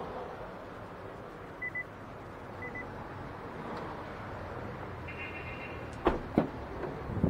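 Sharp clicks and knocks from the Nissan Pathfinder's door, three in all from about six seconds in, as its handle and door are worked, over a steady background hum. Earlier come two pairs of short electronic beeps.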